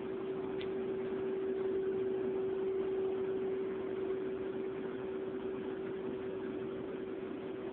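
Steady mechanical hum of hydroponic grow-room equipment running: one constant tone over an even hiss.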